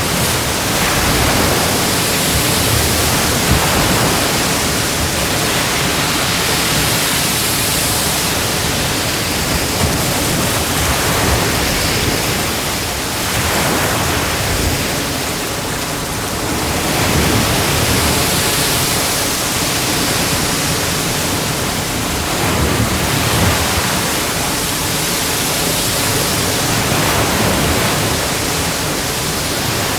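Sea waves breaking and washing onto a beach: a continuous rush of surf that swells and eases every few seconds, easing off briefly about halfway through and again near the end.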